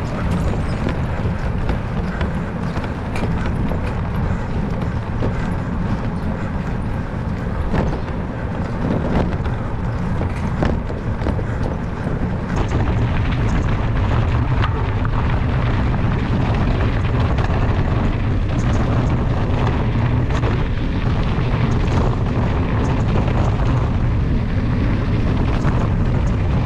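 Wind buffeting the microphone: a steady, loud, low rumble with faint scattered ticks over it.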